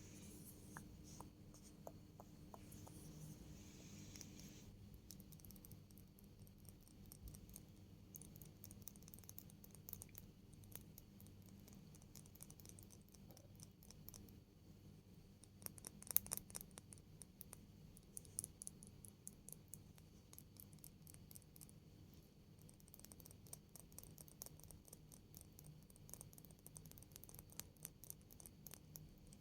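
Faint, close-miked ASMR trigger sounds: soft scratching with light, crisp clicks and taps, coming in quick clusters about halfway through and again near the end.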